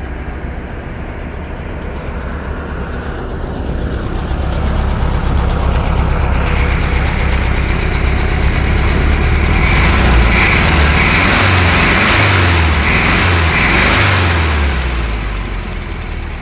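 Freshly rebuilt VW Beetle engine running: it idles, is revved up from about four seconds in and held at higher revs with the pitch shifting, then drops back toward idle near the end.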